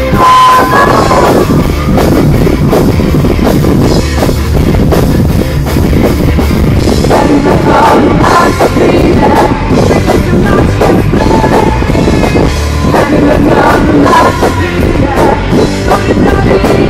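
Live hard-rock band playing loud, with distorted electric guitars, a pounding drum kit and a female singer, heard through a mobile phone's microphone close to the stage.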